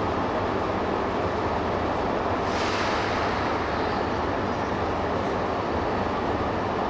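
Shinkansen 200 series train at the platform giving out a steady mechanical noise, with a brief hiss about two and a half seconds in.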